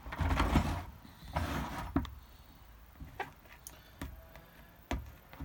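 Handling noises: two short spells of rubbing or scraping, then four single light knocks spaced about a second apart.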